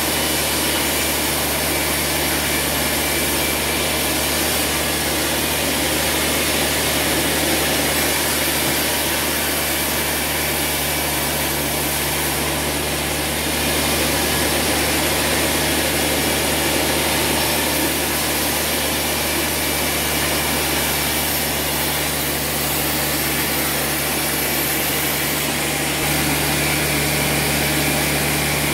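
Large sawmill band saw running steadily with a low drive hum, its blade cutting a timber as it is fed through.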